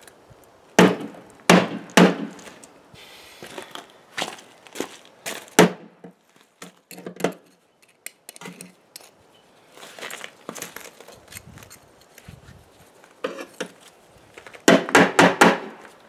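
A metal tool and pliers knocking and scraping through clumped casting sand in a steel wheelbarrow while a freshly poured aluminum casting is dug out of its sand mold. The knocks are irregular, loudest about a second in, with a quick run of several knocks near the end.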